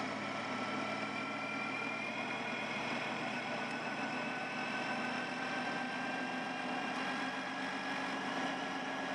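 Honda ST1300 Pan European's V4 engine running steadily at cruising speed, mixed with wind and road noise. Its whine edges slowly up in pitch.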